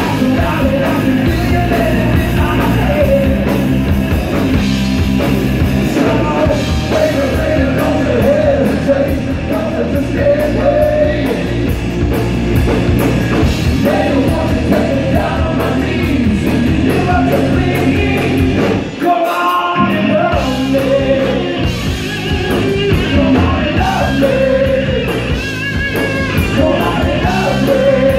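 Live rock band playing: distorted electric guitar, bass and drums, with a man singing. About 19 seconds in, the bass and drums drop out for about a second, then the full band comes back in.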